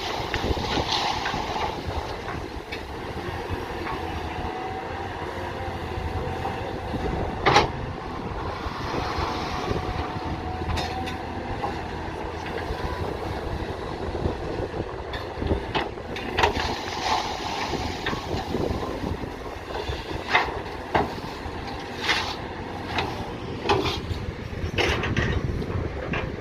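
Earthmoving machine's diesel engine running steadily, with repeated sharp metal clanks and knocks from its working parts. One loud knock comes about seven and a half seconds in, and the knocks come more often in the second half.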